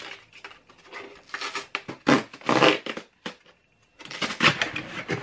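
Cardboard book mailer being torn open along its tear strip: a run of ripping and crinkling cardboard sounds, a short pause a little after three seconds, then more tearing.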